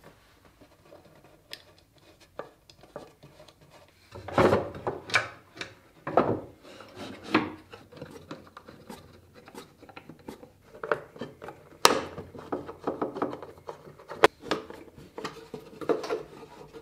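Wooden parts of a cantilever sewing box handled during assembly: oak slats and plywood boxes knocking and rubbing together, and small screws turned in with a screwdriver. Irregular clicks and knocks, with a few sharper knocks among them.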